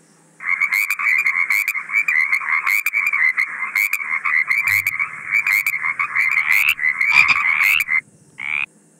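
Frogs croaking in a dense, continuous run of rapid calls that stops about eight seconds in, followed by one short call.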